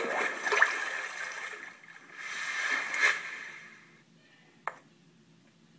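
Cartoon water-splash sound effect from a storybook app, played through a tablet's speaker: two splashing, gurgling bursts about two seconds apart, as the frog dives into the well and comes back up with the ball. One short click follows near the end.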